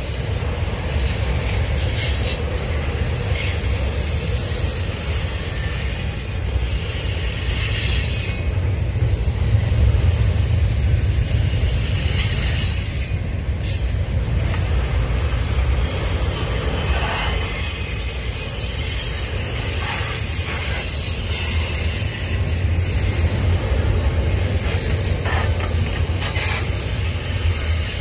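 Union Pacific double-stack intermodal train's container-laden well cars rolling past on the rails: a steady, loud low rumble of steel wheels on track with a hissing wash of noise over it.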